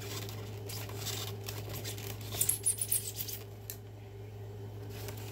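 Hands handling small plastic items and packaging: light rustling, then a quick cluster of clicks and taps a little past halfway, over a steady low hum.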